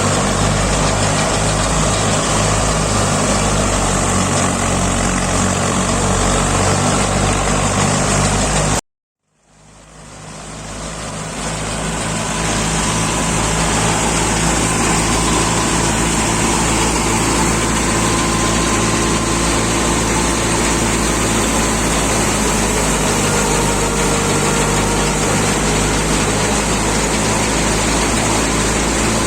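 Tractor engine running steadily, driving a wheat thresher, with an even low pulsing beat. The sound cuts out about nine seconds in and fades back up over a few seconds.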